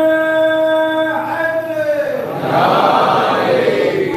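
Voices chanting: one long held note for about two seconds, then a rougher, noisier swell of voices.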